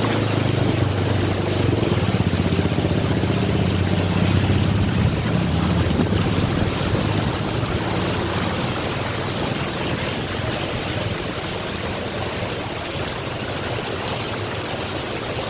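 Steady rushing water of a flooded road, with a motor vehicle's engine running low and loud at first and fading away about halfway through.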